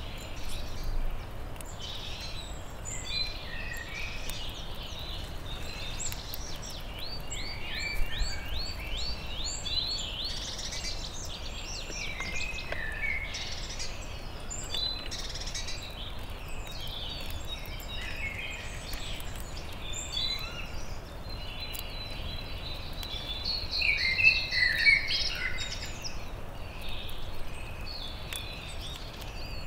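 Several wild songbirds singing and calling in forest, many short overlapping phrases over a low steady outdoor hiss. A run of evenly repeated notes, about four a second, comes about seven seconds in, and the loudest phrases come about twenty-four seconds in.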